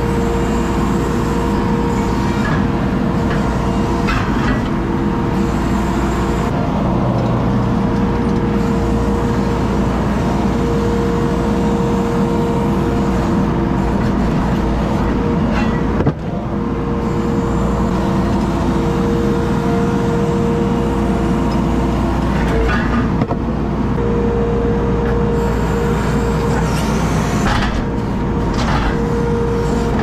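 ASV RT-40 compact track loader's diesel engine and hydraulics running steadily under load, heard from inside the cab, with a steady hum and a few knocks and scrapes from broken concrete slabs being worked with the bucket.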